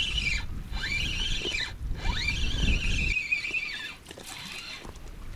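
Spinning reel cranked in quick bursts as line is wound in: each burst is a wavering whine that rises as the crank speeds up and falls away as it stops, several in a row, the longest ending near the end. Wind rumbles on the microphone under the first part.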